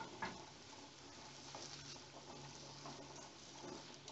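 Faint frying of chopped tomato, onion and garlic in a pan on low heat, with a few light knocks of a wooden spoon against the pan, the clearest about a quarter second in.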